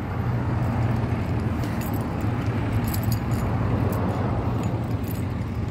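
Bicycle ride across pavement: a steady low rumble, with light metallic rattling and clicking scattered through it.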